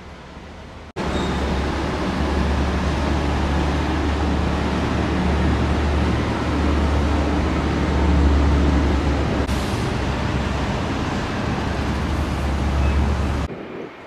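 Loud, steady road traffic noise with a low engine rumble from cars and shuttle buses on a busy roadway. It starts abruptly about a second in and cuts off just before the end.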